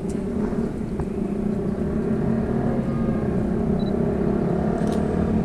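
Steady low hum of a motor vehicle engine running in city street traffic, with a few faint clicks.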